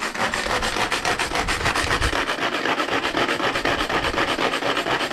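Pull-cord manual garlic chopper being pulled over and over, its blades spinning with a fast, even rasping rattle as they churn fish broth and mash into a liquid.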